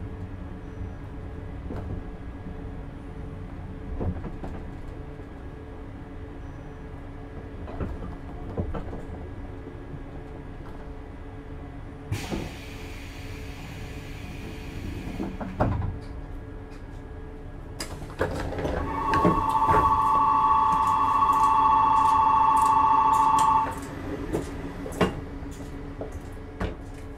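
JR East 651-series train standing at a station, its equipment humming steadily. A hiss of air lasts about three seconds, then a two-tone door buzzer sounds for about five seconds, and the doors close with a few knocks.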